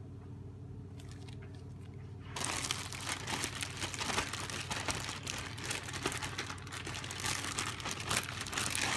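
Plastic food bag crinkling and rustling as chicken pieces in a wet marinade are squeezed and kneaded inside it, starting about two seconds in and continuing steadily. Before that, only a low steady hum.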